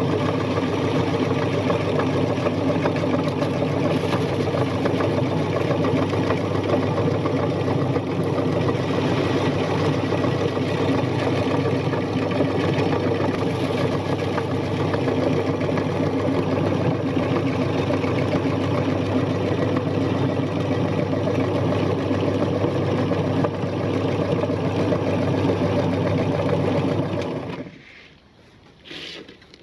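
Electric meat grinder running steadily, then switched off near the end, its sound stopping abruptly.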